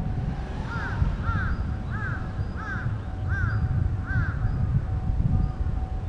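A crow cawing, six calls in a row about two-thirds of a second apart, over a low steady rumble.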